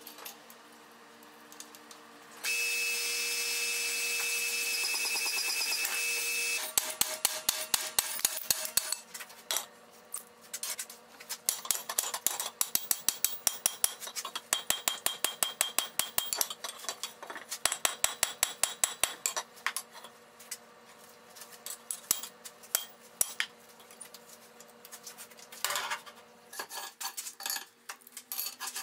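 Power hammer forge-welding a white-hot joint in heavy flat steel bar: a few seconds of steady running noise, then fast runs of hard blows, about five a second, with scattered lighter strikes toward the end.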